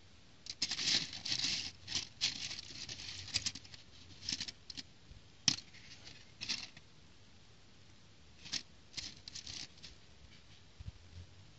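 Small plastic building bricks clicking and rattling against each other and a plastic plate as hands rummage through the pile, in several short flurries with quiet gaps between them.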